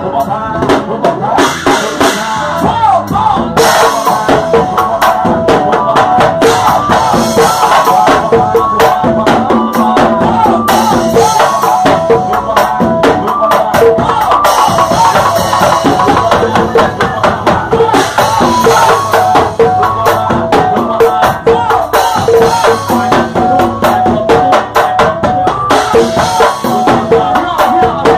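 A drum kit played live and close up, snare, bass drum and cymbals keeping a steady, busy groove, with the rest of the band playing along in an instrumental passage.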